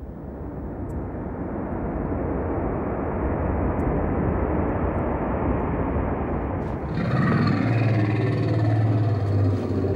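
A low rumbling noise that builds steadily louder, with a deeper steady drone joining about seven seconds in.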